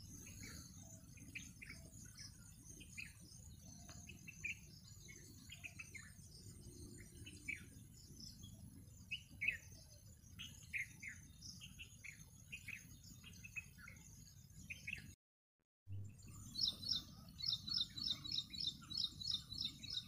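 Small birds chirping outdoors: many short, quick downward notes over a steady high insect hiss and a low rumble. The sound breaks off briefly about fifteen seconds in. Near the end a high call repeats rapidly, about three notes a second.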